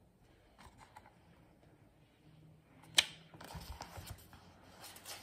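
A hardcover picture book being handled close to the phone: soft rustles and small clicks, with one sharp click about three seconds in.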